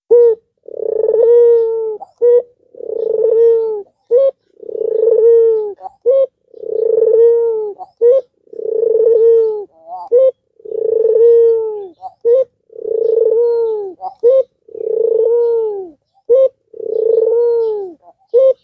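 An albino puter (domestic ringneck, or Barbary, dove) cooing in a steady rhythm. Each phrase is a short note followed by a long drawn-out coo that drops in pitch at the end, repeated about every two seconds.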